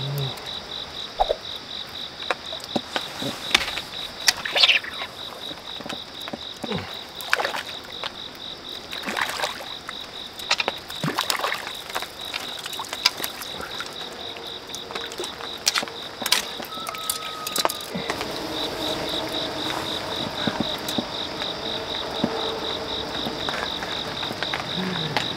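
Crickets chirping in a steady, fast-pulsing high trill, with scattered sharp clicks and taps. Frogs croak in the later part.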